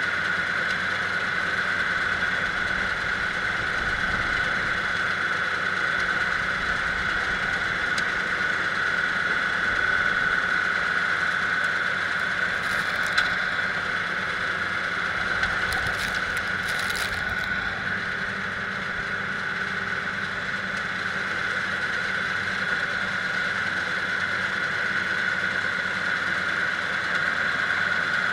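Kubota diesel engine running steadily, with a steady high-pitched whine over it. A few faint ticks come about halfway through.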